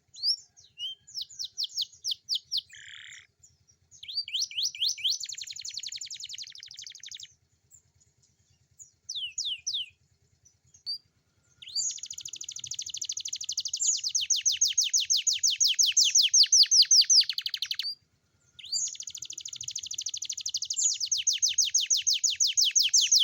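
A young domestic canary singing: short twittering phrases, then long rapid trills of quick repeated notes, with one brief pause between the two long trills.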